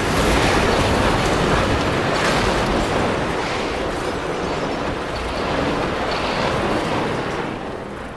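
Steady, loud rushing noise that eases off near the end.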